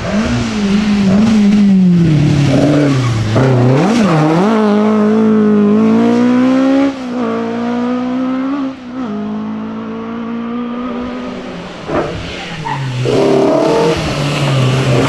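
Historic rally car engines revving hard at full throttle on a special stage, first a Ford Escort Mk2 and then a BMW M3 E30. The engine note climbs and drops with each gear change and lift. There are sharp breaks about seven, nine and twelve seconds in, then the note builds again near the end.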